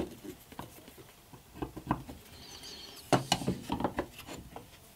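Light clicks and taps of a metal combination square and a pencil being handled against an ash hardwood block on a bench while marking out, with a quick cluster of taps a little after three seconds in.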